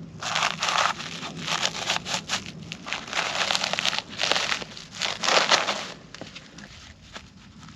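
Camping gear being handled: an irregular run of crackly, crinkling rustles that eases off about six seconds in.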